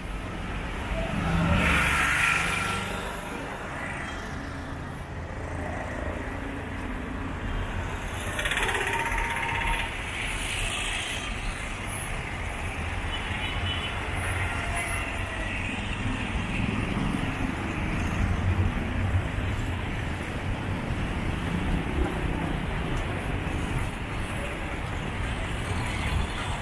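Busy city street traffic: auto-rickshaws and cars passing over a steady low rumble. A louder vehicle passes about two seconds in and another around nine to eleven seconds.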